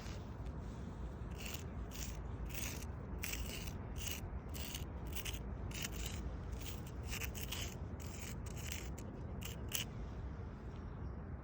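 Footsteps on a gritty surface, about two short scraping steps a second, stopping near the end, over a steady low rumble.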